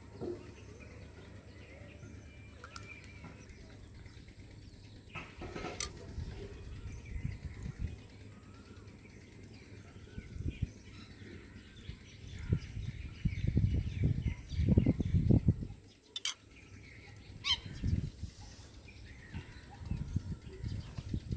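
A person eating crisp golgappas (pani puri): the hollow fried puris crack sharply in the mouth a few times, about six seconds in and again around sixteen to seventeen seconds, with loud irregular chewing and handling noises just before the later cracks. Birds chirp faintly in the background.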